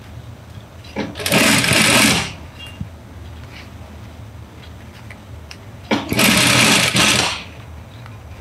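Industrial single-needle sewing machine stitching bias tape onto a fabric edge in two short runs of just over a second each, starting about a second in and again about six seconds in, with a quiet motor hum and small handling clicks in the pause between.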